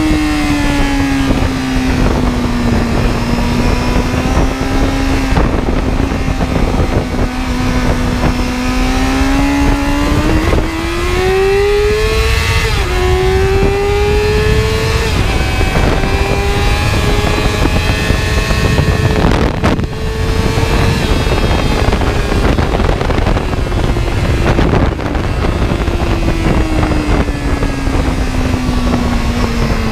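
Vehicle engine being driven hard, its pitch climbing under acceleration, dropping sharply at a gear change about twelve seconds in, then falling away slowly near the end as it slows. A constant loud rush of wind and road noise runs underneath.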